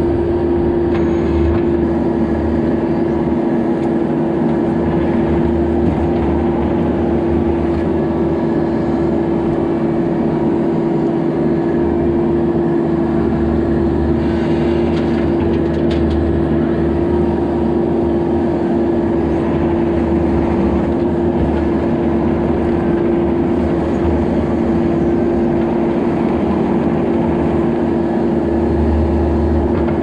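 Bobcat E26 mini excavator's diesel engine running at a steady pitch at working throttle, heard from the operator's seat.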